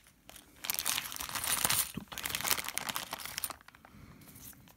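Small clear plastic coin bag crinkling as it is opened and handled, a dense crackle from about half a second in until about three and a half seconds, then fainter rustling.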